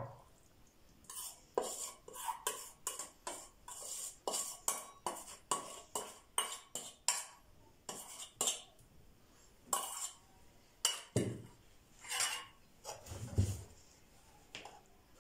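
A metal spoon clinking and scraping against a metal bowl and an aluminium baking tray in quick strokes, about two to three a second, as an egg-and-milk mixture is spooned out over the pastry. The strokes slow to a few longer scrapes, with a dull knock near the end.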